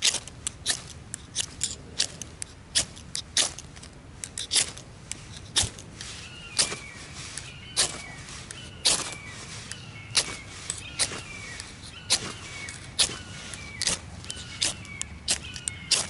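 Repeated sharp scrapes of a Swiss Army knife's small blade struck down a ferro rod to throw sparks onto birch bark, roughly two strokes a second and irregular. From about six seconds in, a bird calls over and over.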